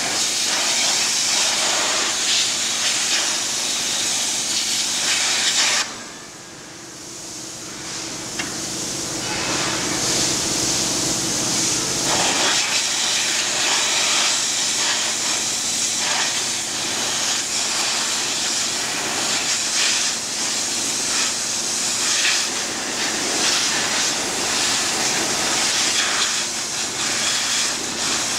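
Densin high-pressure washer's water jet spraying against a metal frame: a loud, steady hiss. About six seconds in the spray drops away suddenly, leaving a steady hum, and it builds back up over the next few seconds.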